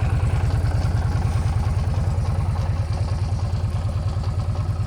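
Lifan LF250B motorcycle engine idling at an even, steady beat, with a knock in it that the owner treats as a sign of trouble.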